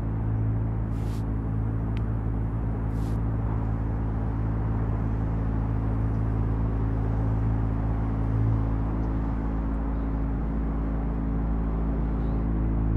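Ambient drone music: a low, steady drone of several sustained deep tones under a hiss, with two brief high hisses in the first few seconds.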